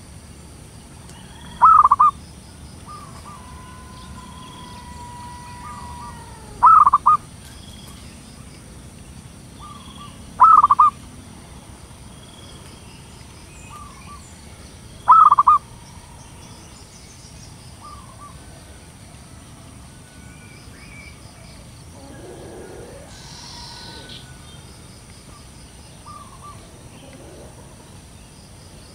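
Zebra dove (perkutut) cooing: four short, loud bursts of rapid notes, spaced about four to five seconds apart, with fainter calls in between.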